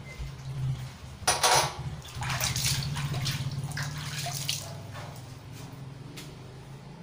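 Squid and other seafood sizzling in a hot wok over a gas flame, a loud hiss about a second in, then a crackling sizzle that dies down after about four and a half seconds, over a low steady hum.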